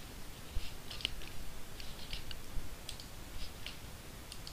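Computer mouse clicking: about a dozen light, irregular clicks.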